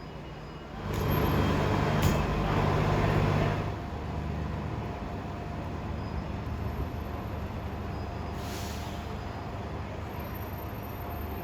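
Transit bus engine running steadily with a low hum. About a second in, a loud rush of noise lasts some three seconds, with a click in the middle.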